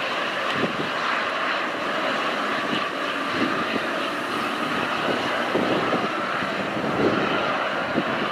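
Airbus H225 helicopter running on the ground with its rotor turning: a steady whine from the twin turboshaft engines over constant rotor noise.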